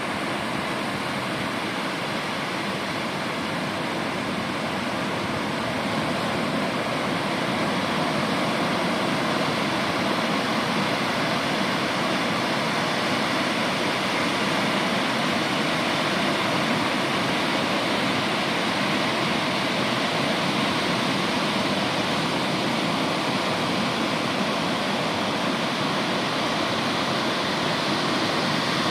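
Steady rushing noise with no distinct events, getting slightly louder over the first several seconds.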